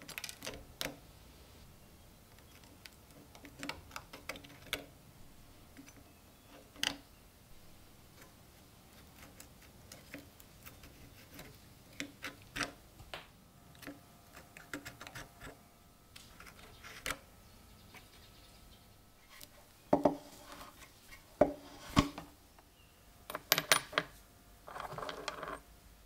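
Small metal-on-metal clicks and clinks from rusty old lighter parts being pried apart with tweezers and a screwdriver. The clicks are scattered and sharp, with several louder clinks and a short rattle near the end.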